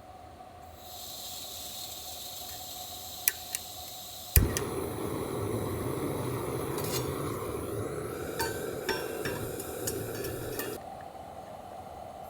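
Cooking on an iron griddle over a campfire. A fine sizzle, then a sharp metal clank about four seconds in, after which the sizzling turns louder and fuller, with light metal clicks, until it drops back near the end.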